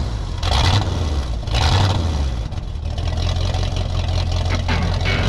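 An engine running with a steady low hum, revving up briefly twice in the first two seconds, then holding an even run.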